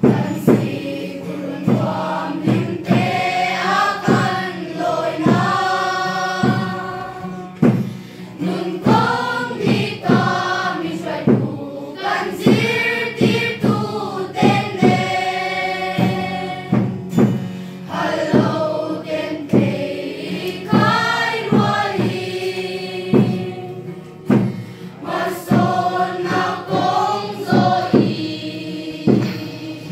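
A children's school choir of boys and girls singing a song in Mizo together, accompanied by a strummed acoustic guitar.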